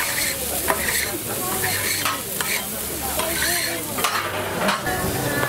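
Beef burger patty frying on a hot flat griddle: a steady high sizzle of spitting fat, with a few sharp clicks.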